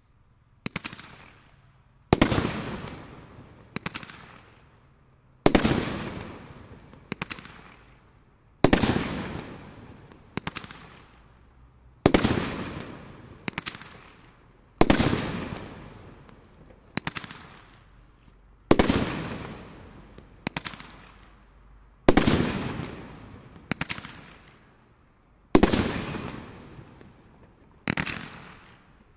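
Merlin's Apprentice combination Roman candle barrage firing its shots one after another, about one every second and a half, each a sharp report with a fading tail.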